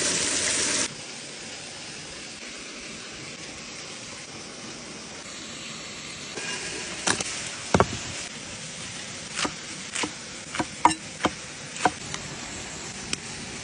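Steady hiss of a waterfall, with a louder hiss that cuts off about a second in. In the second half, about nine sharp, irregular knocks of a knife chopping green peppers against a wooden board.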